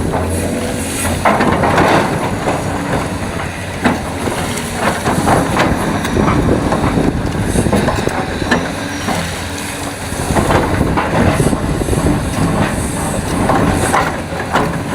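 Hitachi EX870 hydraulic excavator working, its diesel engine running steadily under load, with irregular clanks and rattles of metal and rock throughout.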